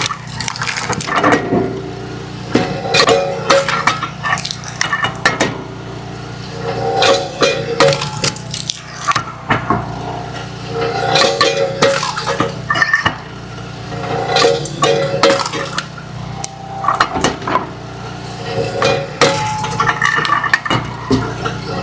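Split firewood pieces clattering and knocking against each other as a conveyor carries them and drops them onto a pile. The clatter comes in bunches every few seconds, over a steady low hum from the conveyor's drive.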